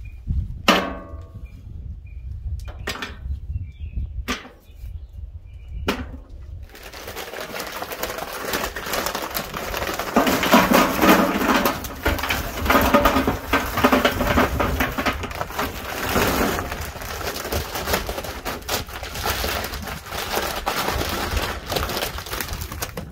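Oak charcoal briquettes poured from a paper bag into the steel charcoal hopper of a Masterbuilt Gravity Series 1050, a dense rattling clatter of briquettes tumbling onto metal and onto each other. A few separate knocks come first, the clatter sets in several seconds in, and it is loudest in the middle.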